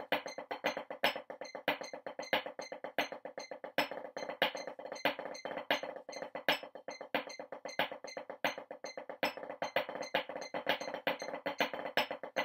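Wooden drumsticks playing a fast snare exercise on a drum practice pad: a dense, even stream of strokes with regularly spaced louder accents.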